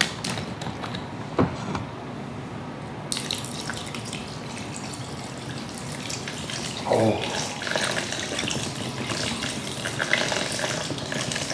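Water pouring from large plastic bottles into stainless-steel basins of cold noodles, a steady splashing pour that starts about three seconds in, after a couple of sharp clicks.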